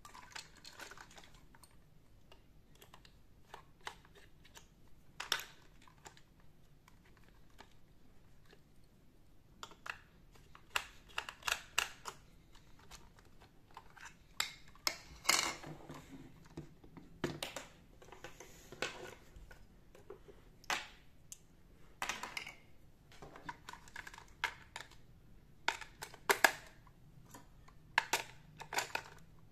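Irregular clicks, taps and rattles of hard plastic being handled as a toy doll is put together: its battery-compartment cover is taken off and batteries are pressed into the compartment.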